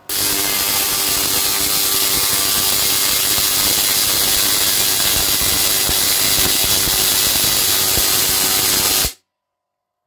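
Tesla coil driven by two microwave oven transformers firing, with a loud, dense crackling buzz of arcs striking out to a grounded ladder. It starts abruptly and cuts off suddenly about nine seconds in.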